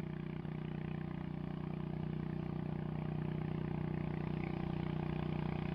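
A steady, low mechanical hum, like a small motor running without change.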